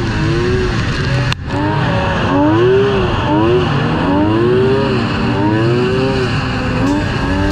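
Vintage two-stroke snowmobile engine at race speed, revving up and down again and again as the throttle is worked, with the rush of snow and wind over it.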